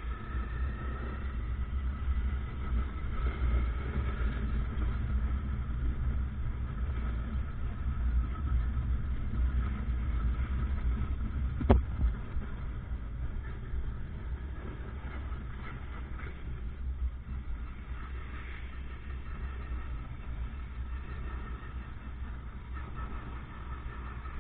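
Motorcycle engine and street traffic heard while riding, with a steady low rumble, and one sharp knock about halfway through.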